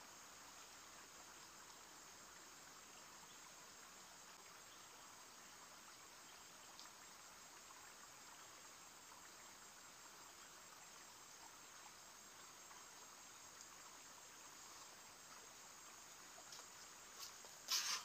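Faint, steady chirring of insects over quiet outdoor ambience. Near the end comes a short burst of sharp clicks and rustling.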